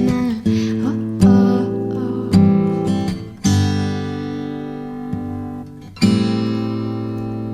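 Background music: an acoustic guitar strumming slow chords, each struck and left to ring, with a longer held chord in the middle.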